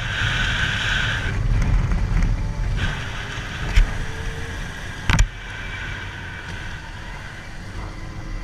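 Steady rumble and rushing noise of a motorcycle ride, with two sharp clicks about four and five seconds in.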